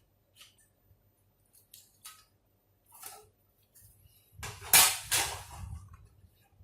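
Laptop bottom cover being released and lifted off: a few light plastic clicks, then a louder clatter and scrape about two-thirds of the way in, followed by quieter handling.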